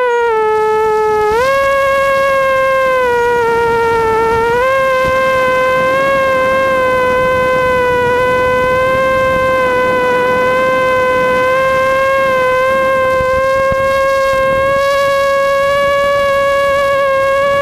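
ImmersionRC Vortex FPV racing quadcopter's motors and propellers whining, the pitch rising and falling with the throttle. It steps up about a second in and again around four and a half seconds, then climbs slowly near the end.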